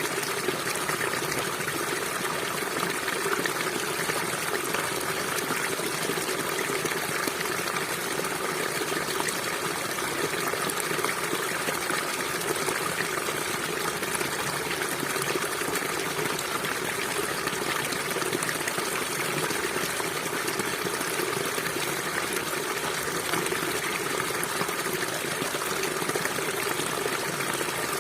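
River water flowing steadily, an even rushing and gurgling with no change.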